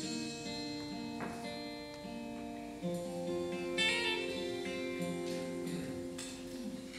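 Live worship band playing slow, soft music: acoustic guitars strummed over held chords that change every second or two.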